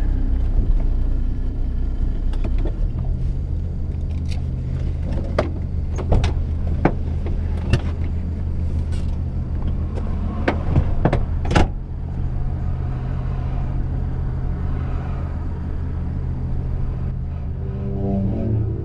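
Old car's engine idling steadily, with a series of sharp clicks and knocks as the driver gets out. A door shuts with a thump about twelve seconds in.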